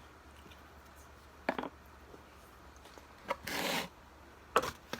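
A few brief handling noises over quiet room tone, as a plastic water bottle is picked up and handled: a click about a second and a half in, a short rustle near the middle, and a sharp click near the end.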